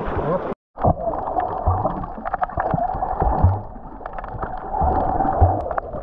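Muffled underwater sound from a camera held below the surface while snorkelling: water gurgling and sloshing, dull low thumps from swimming strokes and scattered clicks over a steady hum. It starts after a brief dropout under a second in.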